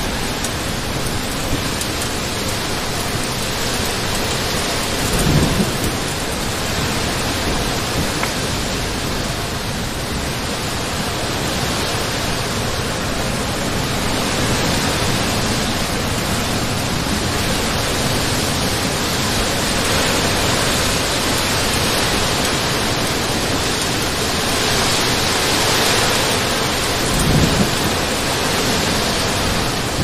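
Heavy rain falling steadily, a dense even hiss. Two brief low thumps stand out, about five seconds in and again near the end.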